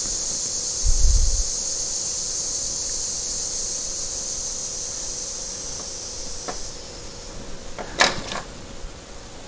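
Light clicks and taps of hands working a new rubber gasket into the grooves of a 2002 BMW 325i's metal oil filter housing, with a dull bump about a second in and the sharpest click about eight seconds in. A steady high-pitched hiss runs underneath and fades near the end.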